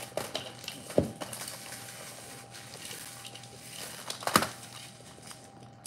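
Crackers being crushed and crumbled by gloved hand, with crumbs sprinkling into a plastic mixing bowl; a light crunching throughout, with two sharper knocks, about a second in and past four seconds.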